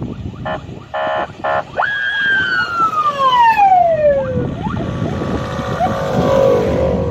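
A vehicle siren gives three short beeps, then a wail that falls steadily in pitch over about two and a half seconds. Underneath runs the engine rumble of off-road 4x4s driving past on a snowy road.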